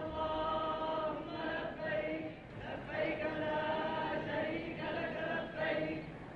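Voices chanting in unison, drawing out long held notes that break off and start again every second or so.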